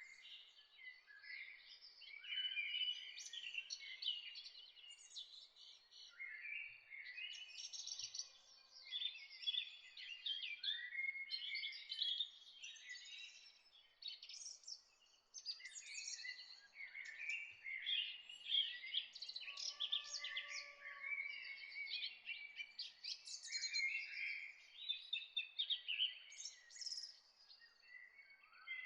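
Chorus of several songbirds chirping and singing at once, with dense overlapping chirps, trills and whistled phrases.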